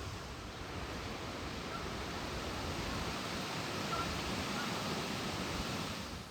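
Wind rushing through trees, swelling slowly and then cutting off, with a few faint short high chirps in the middle.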